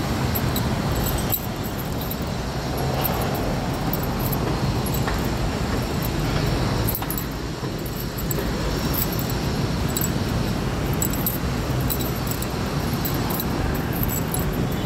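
Steady city traffic rumble from cars and vans on the road beside the sidewalk, with many light, irregular high clicks or jingles over it.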